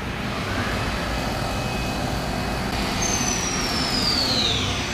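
Mori Seiki CNC vertical machining centre running with a steady hiss of machine noise and coolant spray. Over the last two seconds its spindle whine falls steadily in pitch as the spindle slows down after the cut.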